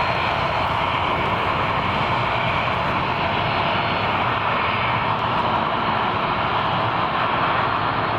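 Jet engines of a taxiing Boeing 747 running at low taxi power: a steady rushing noise with a faint high whine.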